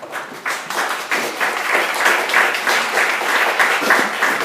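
Audience applauding, swelling over the first second into steady, dense clapping.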